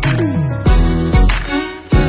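Background music with a steady beat: a deep kick drum about twice a second under pitched instruments.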